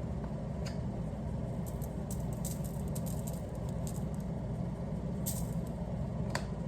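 Seasoning being shaken from a shaker into flour: scattered light ticks and rattles over a steady low hum.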